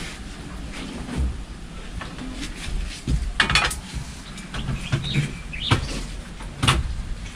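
Birds chirping, with a few sharp knocks and clinks of cooking gear being handled.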